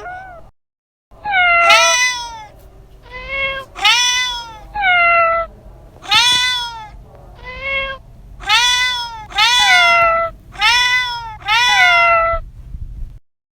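A domestic cat meowing over and over, about a dozen separate meows, each rising then falling in pitch.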